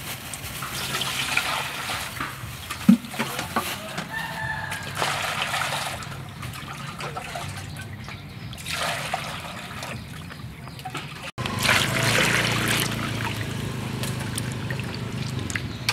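Water sloshing and splashing in a stainless steel bowl as hands wash raw chicken, with a sharp knock about three seconds in. Chickens call in the background.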